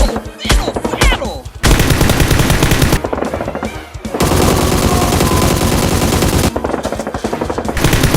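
Rapid automatic gunfire in several long bursts, with short breaks between them.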